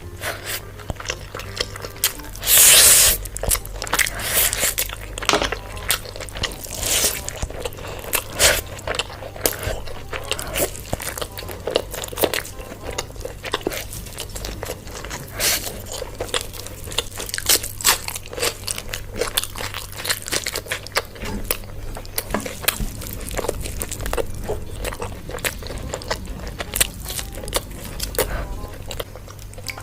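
Close-miked eating: crunchy bites and chewing, many sharp crackles in quick succession with one loud crunch about three seconds in, over background music.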